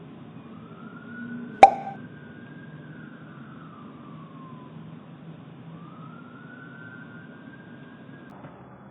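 Emergency vehicle siren wailing, its pitch slowly rising and falling. A single sharp click about one and a half seconds in is the loudest sound.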